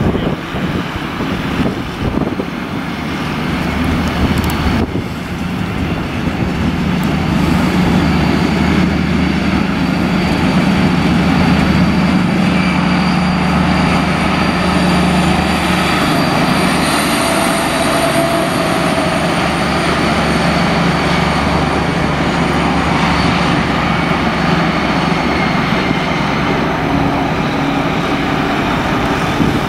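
DB class 218 diesel-hydraulic locomotive working hard as it pulls away with a double-deck train: a steady, heavy engine drone with a faint high whine above it, building over the first several seconds and then holding.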